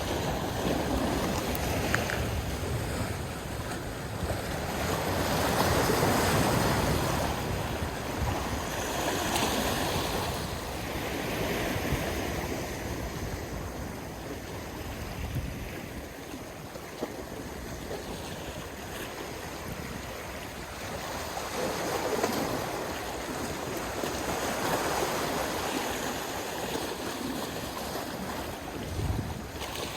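Water washing in slow swells that rise and fall every few seconds, with wind on the microphone.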